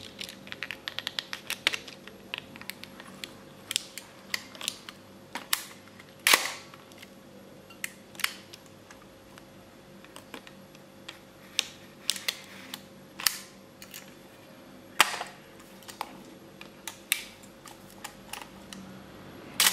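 Scattered clicks and ticks from a 1965 Canon Pellix 35mm SLR being handled while film is loaded, the film leader pressed onto the take-up spool. A quick run of small ticks comes near the start, and a few louder, sharper clicks follow later.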